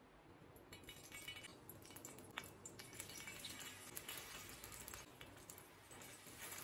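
Faint crackling of oil on a flat tawa as masala-coated arbi (taro root) pieces are slid off a slotted metal spoon into it, with a few sharp clinks of the spoon. The crackle starts about a second in.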